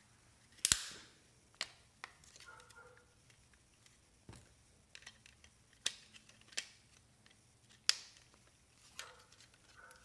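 Sharp plastic clicks and snaps, about seven of them, the loudest a little under a second in, as the clip-on side rails of a Synology tool-less drive tray are pressed into place on a 3.5-inch hard drive. Faint handling rustle of plastic on the drive between the clicks.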